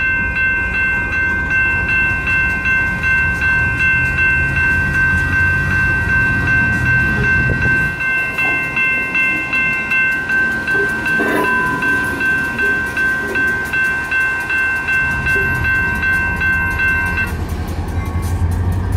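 Railroad crossing's electronic warning bells (General Signals and WCH Type 2) ringing together in rapid repeated strokes, several tones overlapping, until they stop near the end. Underneath, the low rumble of Union Pacific diesel locomotives, a GP40-2 and a GP60, running slowly through the crossing.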